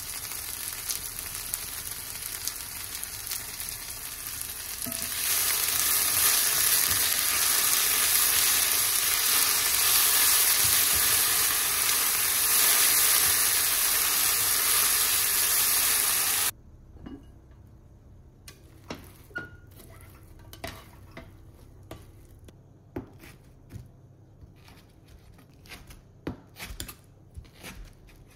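Julienned potatoes and green pepper strips sizzling in a frying pan as they are stir-fried with a spatula. The sizzle gets louder about five seconds in and cuts off suddenly after about sixteen seconds. Then comes a run of scattered knocks from a kitchen knife chopping wakame seaweed on a cutting board.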